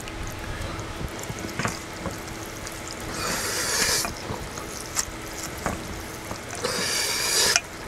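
Chopsticks stirring and tossing sauce-coated ramen noodles and rice in a stainless steel bowl: wet squelching in two spells of about a second each, with a few sharp clicks of the chopsticks against the metal bowl.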